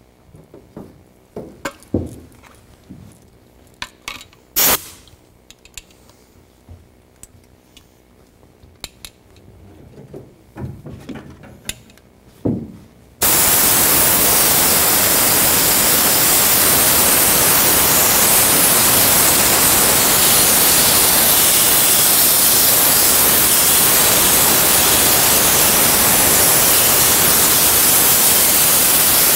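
Compressed-air canister spray gun spraying adhesive onto jute carpet padding. It starts a little under halfway through and then hisses loudly and steadily. Before that there are light handling clicks and knocks and one short hiss of spray.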